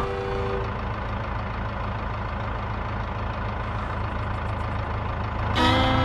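A steady low engine rumble at idle. Fiddle music with sustained notes fades out at the start and comes back in near the end.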